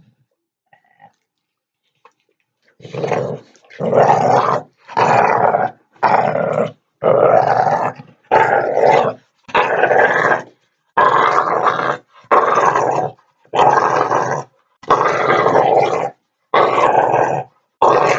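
Dog play-growling during rough play: after a quiet first few seconds, a steady run of loud, rough growls, about one a second.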